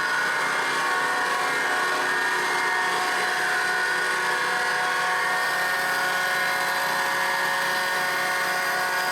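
Yates American B244 thickness planer's three-phase cutter head motor running steadily at speed, a constant whine with several held tones. Its old bearings are pretty noisy.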